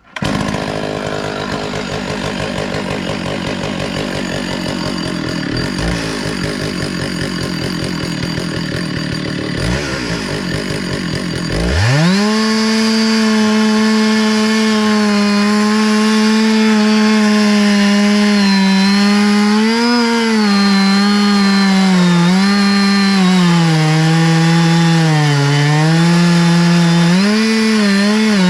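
Stihl chainsaw on an Alaskan chainsaw mill starting up and idling unevenly. About twelve seconds in it revs up to full throttle and runs steadily, its pitch sagging several times under load as the chain rips through an oak log.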